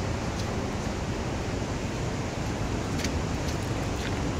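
Steady rushing roar of Eagle Creek's whitewater and falls in the gorge below the trail.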